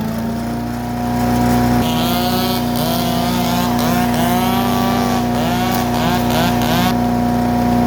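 Gas engine of a Harbor Freight wood chipper running steadily at constant speed, with no wood being fed.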